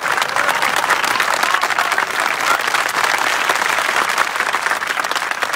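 A large crowd clapping, many hands applauding steadily and loudly throughout.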